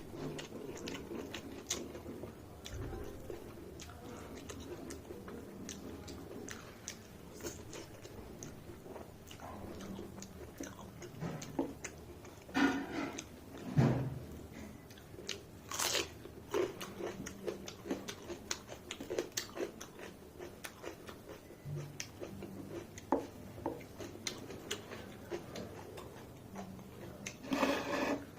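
A person chewing and biting food close to the microphone, with a steady run of small wet mouth clicks and smacks. A few louder crunches come in the middle and again near the end.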